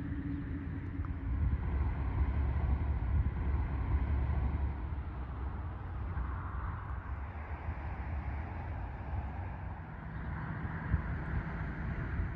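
Outdoor ambience: an uneven low rumble of wind buffeting the microphone, strongest in the first few seconds, over a faint steady hiss.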